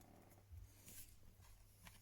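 Near silence: room tone with a low steady hum and a few faint handling rustles and light clicks.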